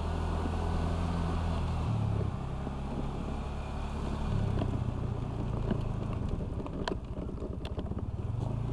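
Honda Vario 125 scooter's single-cylinder engine running while riding, its hum dropping in pitch about two seconds in and rising again later as the throttle changes, with wind on the microphone. A few sharp clicks come around seven to eight seconds in.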